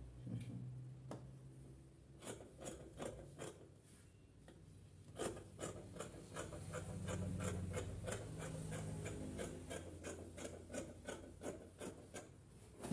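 Scissors cutting through suit-lining fabric: a run of short snips, about three a second, starting about two seconds in.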